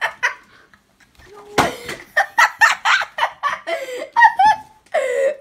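A boy laughing hard in rapid, broken bursts, starting about one and a half seconds in after a short pause.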